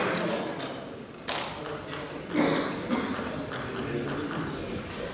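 Sharp ticks of a celluloid table tennis ball on the table and bat: single clicks in the first half, then several quicker ones around three to four seconds in as the ball is served. They sit over a low murmur of the hall crowd, with applause dying away at the start.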